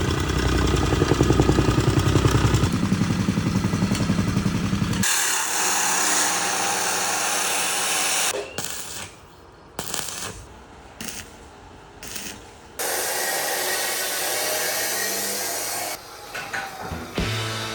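Power tools and work noise in short cuts: a fast rhythmic machine hammering for about five seconds, then steady whirring tool noise, a quieter stretch with scattered knocks, more tool noise, and clatter near the end.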